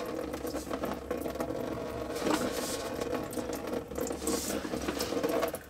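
Engine coolant running out of a radiator drain plug and pattering into a drain pan, over a steady hum.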